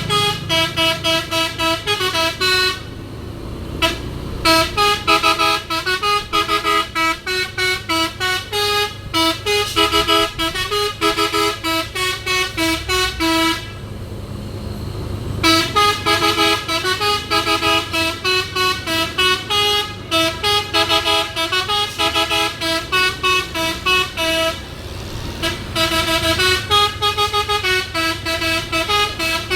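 Telolet horn, a multi-tone air horn, playing a quick melody of short notes in runs, with gaps about three seconds in, around fourteen seconds in and near twenty-five seconds. A truck engine's low rumble runs underneath.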